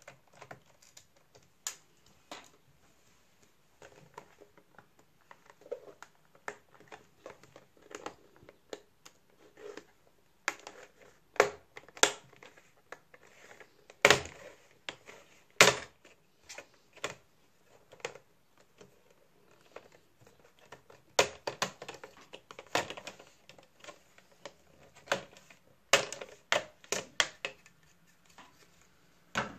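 Plastic laptop display bezel being pried off the lid by hand, its clips snapping loose in a series of irregular sharp clicks and snaps, the loudest about halfway through and again in the last third.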